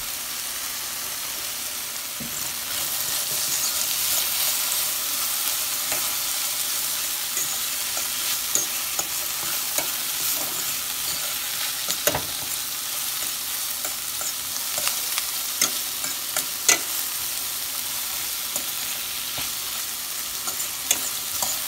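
Sliced zucchini and onion sizzling in a hot stainless steel frying pan, a steady hiss, with scattered sharp clicks and scrapes as they are stirred against the pan.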